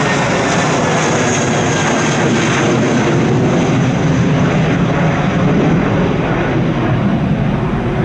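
Airbus A320's twin jet engines at takeoff climb thrust as it climbs away overhead: a loud, steady roar, with a whine falling in pitch at the start and a high whine about a second or two in.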